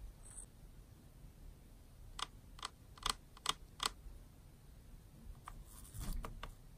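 Male Gooty sapphire ornamental tarantula (Poecilotheria metallica) drumming: a run of five sharp taps, about two and a half a second, then a short cluster of taps near the end. This is the male's courtship signal, calling for a female.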